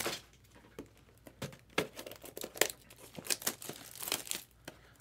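Foil trading-card packs crinkling as they are handled, in scattered short crackles.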